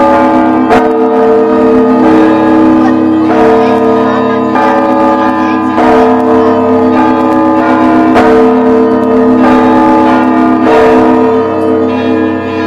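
Church bells ringing together: several bells struck in a repeating pattern, a new stroke about every second, each tone ringing on over the others above a steady low hum. The ringing starts to fade near the end.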